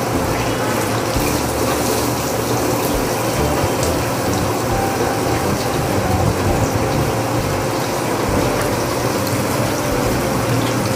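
Chicken pieces sizzling and bubbling in the hot oil of a commercial electric deep fryer: a steady, even noise.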